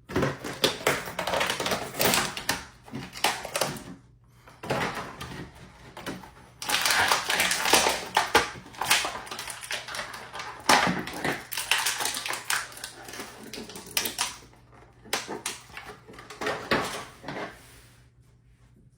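A Buzz Lightyear toy's packaging being opened by hand: irregular rustling, tearing and clicking in bursts, which stop shortly before the end.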